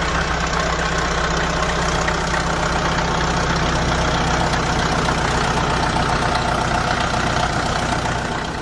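Bulldozer's diesel engine running steadily at a constant speed.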